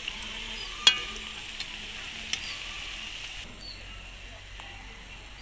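Mustard-flower pakoras sizzling in hot oil in an iron kadhai while a metal slotted ladle turns them, with a sharp clink of the ladle against the pan about a second in. After about three seconds the sizzle drops down.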